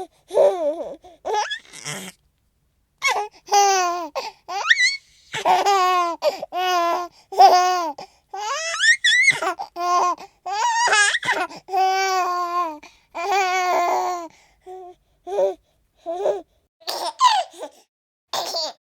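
A baby laughing and giggling in bursts of high-pitched laughs, broken by short silent pauses, with a long squealing laugh that climbs in pitch about nine seconds in.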